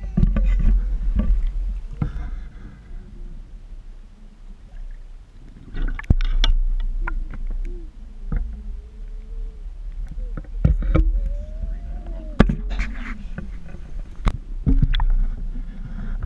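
Water sloshing and gurgling around an action camera's waterproof housing as it dips at and below the surface, with a constant deep rumble and repeated sharp knocks and clunks against the housing.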